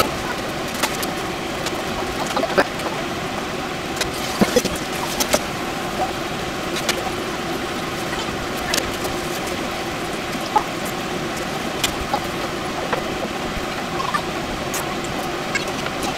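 A large pot of water heating on a stove toward the boil: a steady rushing hum with scattered small ticks and pops as bubbles form.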